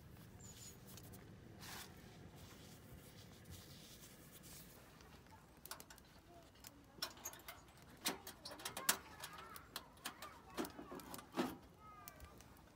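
Light metal knocks, clicks and scrapes as gloved hands shift the steel top plates of a homemade wood stove, coming thick from about halfway in after a quieter start. A few short bird chirps sound near the end.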